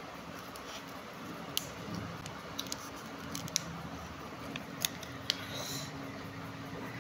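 Foil and paper wrapper of a chocolate bar being handled: scattered sharp crinkling clicks, about seven in a few seconds, and a short rustle near the end, over a steady low hum.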